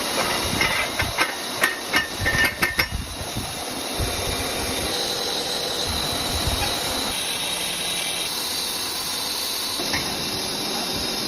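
Electric welding arc crackling and sputtering for the first few seconds, then settling into a steady hiss.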